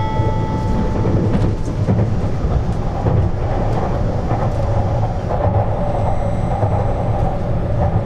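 Interior running noise of a JR East 651 series electric train under way: a steady low rumble of wheels and running gear. The last note of the four-note announcement chime fades out about a second in.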